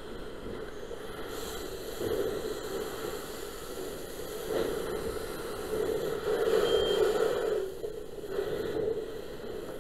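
Fire hose nozzle spraying water into a burning building, a steady rushing hiss that swells several times and is loudest a little past the middle.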